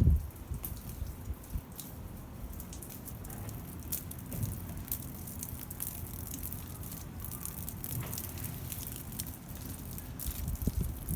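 Shower water spattering and dripping, with many separate drops and a steady low rumble beneath. There are low thumps at the start and again near the end.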